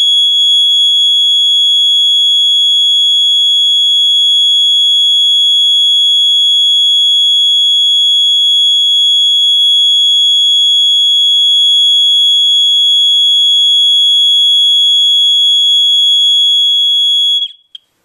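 Simplex 2901-9836 fire alarm mini horn (a rebranded Gentex GX-90) sounding a loud, steady, continuous high-pitched tone, cutting off suddenly near the end.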